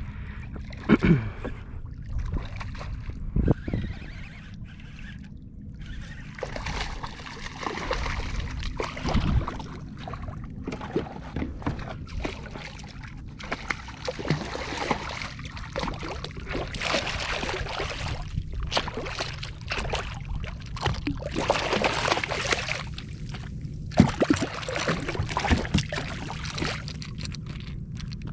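Water splashing and sloshing against a kayak as a hooked redfish thrashes and is fought in, with a few sharp knocks, the loudest near the end.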